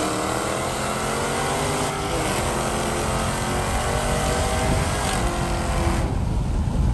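Car engine running hard at speed, heard from inside the cabin with heavy wind and road hiss. About six seconds in, the high hiss drops away while the low engine and road rumble carry on.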